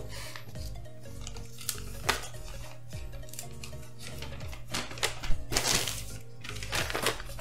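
Background music playing quietly under paper rustling and crackling as a folded sheet is handled and opened, the crinkling busiest in the second half.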